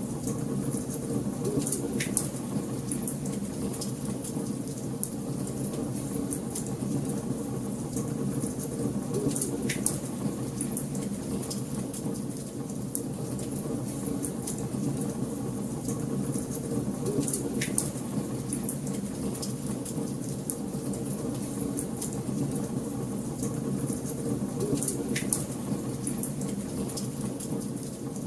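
Wood fire crackling in a fireplace: a steady low rush of flame under constant small crackles, with four louder pops spaced about seven to eight seconds apart.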